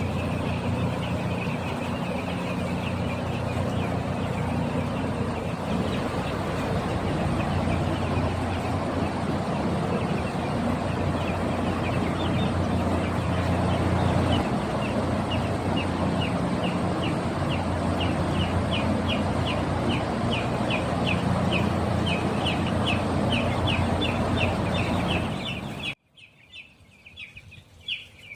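A flock of week-old broiler chicks peeping, a dense chorus of rapid high cheeps over a steady low hum. Near the end the sound drops abruptly, leaving fainter peeps.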